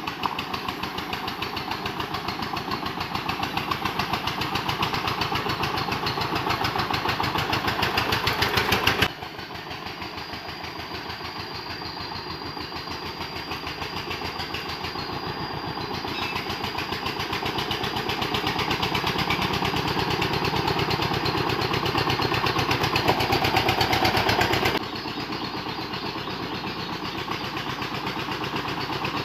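Dongfeng single-cylinder diesel engine on a homemade wood-hauling vehicle, running with a rapid, even chugging under load. The sound drops suddenly in level about nine seconds in, swells again, and drops once more near the end.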